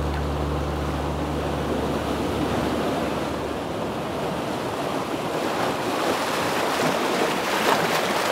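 Sea surf washing onto a pebble shore: a steady hiss of breaking water that swells near the end.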